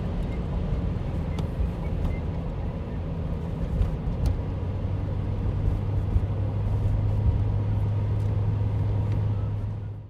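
Road and engine noise inside a moving car's cabin: a steady low rumble, with a hum that grows stronger about halfway through.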